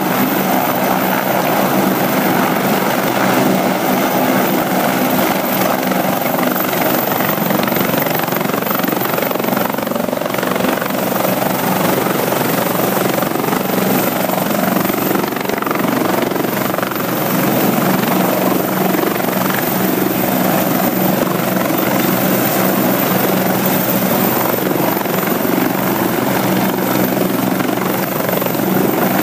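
LifeFlight medical helicopter hovering low, its rotor and turbine running steadily at a loud, even level as its downwash is used to blow a wet baseball field dry.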